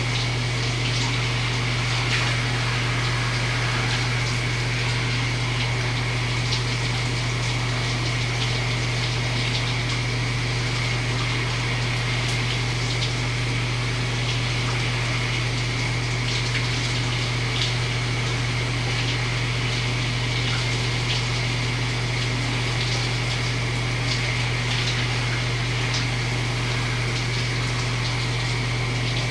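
Shower running: a steady spray of water with a steady low hum underneath.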